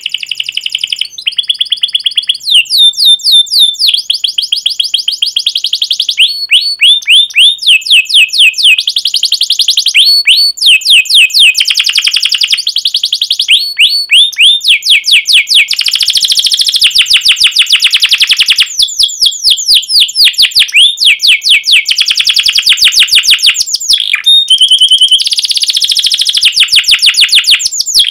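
Domestic canary singing a long, loud song: fast trills of rapidly repeated high chirps, phrase after phrase, each run lasting a second or two with short breaks between.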